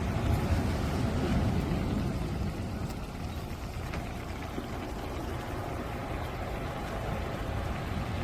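Strong wind rushing and buffeting against the microphone, heaviest in the first few seconds, then a steady rush.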